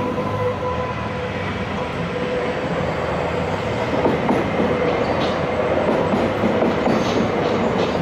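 SBB IC 2000 double-deck train rolling past, cab car first: a steady rumble of wheels on rail with a thin steady whine that fades by about halfway. In the second half it grows a little louder, with several sharp clicks of wheels over rail joints.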